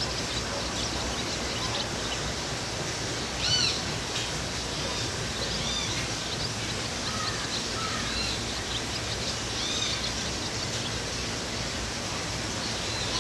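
Several birds calling at dusk over a steady background hiss: short arched chirps in small clusters, the loudest about three seconds in, and a few lower falling notes later.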